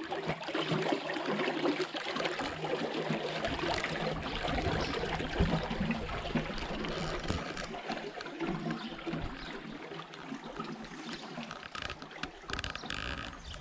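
Water running along a narrow stone gutter channel beside a road, a steady flowing splash.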